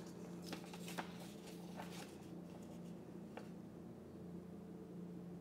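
A handful of faint, light clicks and taps from a glass beaker, glass stirring rod and aluminium wire being handled, the one about a second in the loudest, over a steady low room hum.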